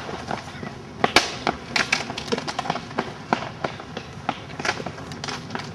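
Sharp, irregular clicks and knocks, about three a second, the loudest about a second in: hard school shoes running on a tarmac path and an empty plastic drinks bottle being kicked and clattering along it.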